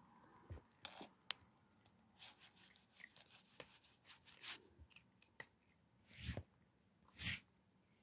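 Kitten eating dry cat food, faint irregular crunches and clicks as it chews the kibble, with two louder short puffs of noise about a second apart near the end.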